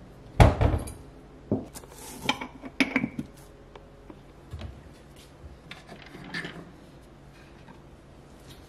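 Glass storage jars being lifted off kitchen cabinet shelves and set down, with clinks and knocks from the jars and the cabinet doors. The loudest knock comes about half a second in, a few sharper clinks follow over the next two or three seconds, then fainter handling.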